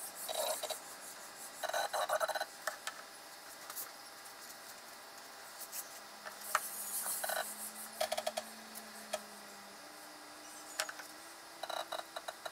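Stepper motors of a DIY CNC router moving the spindle in several short bursts of whine, jogged step by step from a handwheel pendant while the V-bit is lowered onto a slip of paper to zero the Z axis. Scattered small clicks and light paper rustling come in between.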